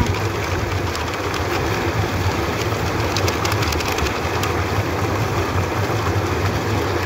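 Electric tubewell pump motor running with a steady hum while water gushes from the outlet pipe into the concrete tank. Small crinkles and splashes come about halfway through.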